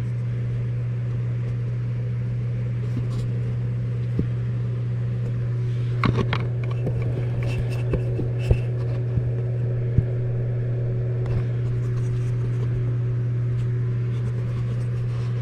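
Automotive smoke machine's air pump humming steadily while it pushes smoke into the intake of a Tuned Port Injection V8 to find a vacuum leak. A few light knocks of handling sound about six, eight and a half, and ten seconds in.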